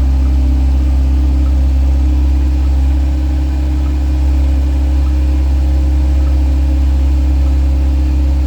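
A vehicle engine running at a constant speed, a steady low drone with no revving.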